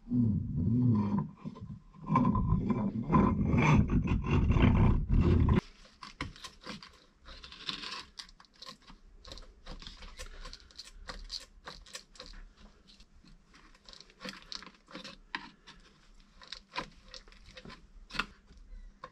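Workshop sounds of taking apart a trench rammer's top end: a loud low rumbling noise for about five and a half seconds that stops abruptly, then scattered clicks and light knocks of tools and metal parts.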